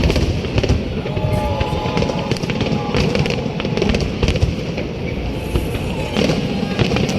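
A fireworks display bursting in quick succession: many sharp bangs and crackles over a continuous low rumble, with music playing along.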